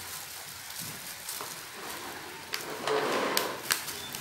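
Hot oil sizzling steadily as potato fries fry. About two and a half seconds in comes a louder rustle with a few sharp clicks as floured fries are tossed by a gloved hand on a metal tray.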